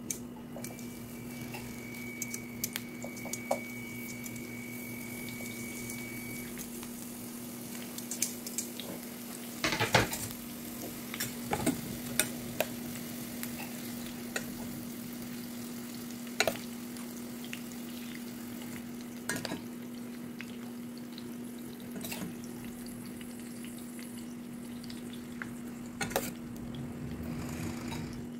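Meat loaf slices and stuffed bell pepper rings frying in a pan with a steady sizzle, while a spoon knocks and scrapes against the pan a number of times as filling is spooned in. A steady low hum runs underneath.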